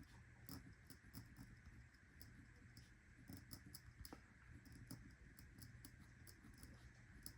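Faint light ticks and scratches of a pen writing on a sticky note, coming in irregular little strokes.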